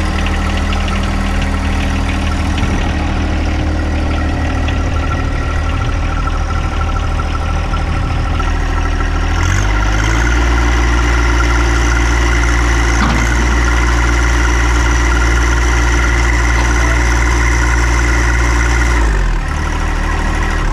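Diesel engine of a Morooka tracked carrier running steadily at idle. About halfway through it is throttled up to a higher steady speed, then drops back to idle shortly before the end.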